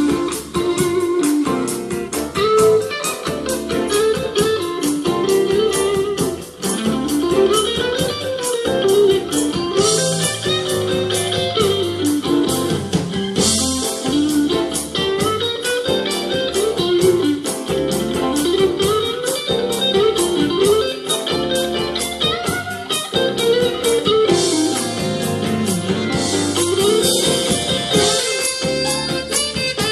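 Band music: an electric guitar plays a blues-style lead line that winds up and down, over a steady, fast drum beat.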